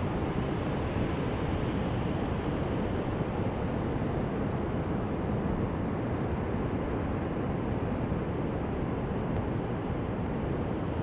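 Steady outdoor wind and surf noise, an even rush with no distinct events.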